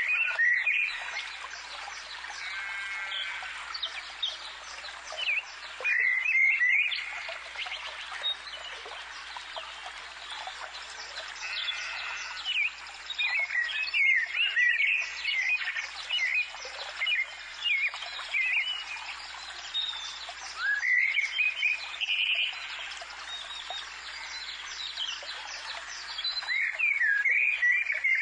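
A chorus of songbirds chirping and singing: many short, quick calls overlapping in a continuous stream.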